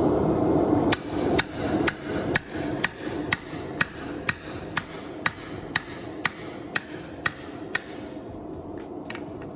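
Hammer blows on steel at an anvil during forging: about fifteen even strikes, two a second, each with a short metallic ring, then a few lighter, quicker taps near the end. A steady rushing noise is loudest in the first second.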